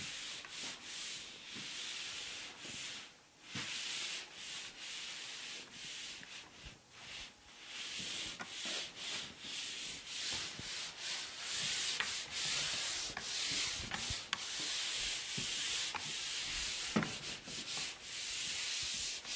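Drywall being sanded by hand, the abrasive rubbing across the wall in repeated strokes with short pauses between them. There are a few light knocks along the way.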